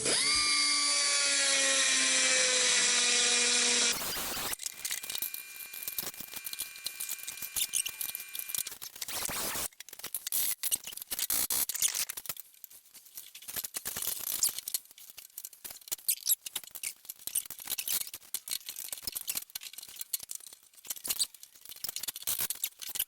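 A loud squealing whine, slowly sliding down in pitch for about four seconds and then cut off, followed by scattered clicks and scrapes of tools working on metal hardware during tailgate disassembly.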